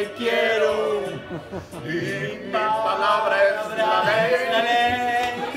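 A man singing without accompaniment, holding long sustained notes in the second half.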